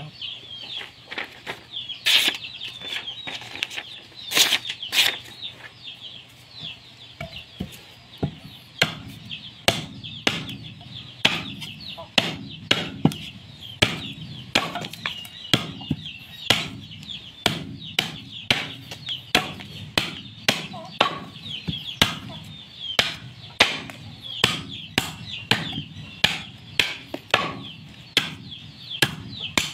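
A hand-forged long chopping knife of leaf-spring steel hacking into a length of green bamboo, testing the edge. The blows are sharp and sudden: a few scattered ones at first, then a steady run of about one a second from roughly eight seconds in.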